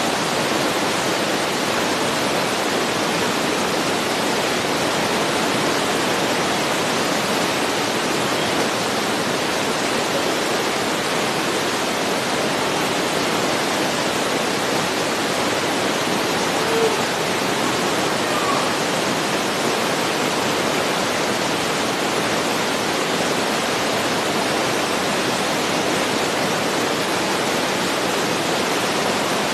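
A steady, even hiss that stays unchanged throughout.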